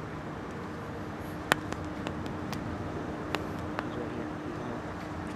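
Steady outdoor background noise with a faint low hum, broken by scattered sharp clicks; the loudest click comes about a second and a half in.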